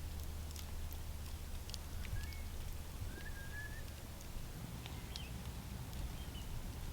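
Faint bird calls: a few short whistled notes that slide in pitch, the clearest about three seconds in, over a low steady hum and scattered faint clicks.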